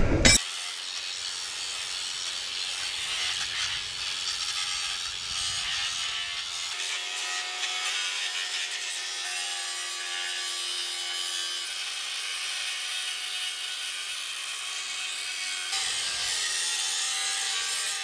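AEG angle grinder grinding steel with its disc, a steady hiss of metal on the wheel with a faint motor whine through the middle stretch. The sound shifts slightly about seven and sixteen seconds in.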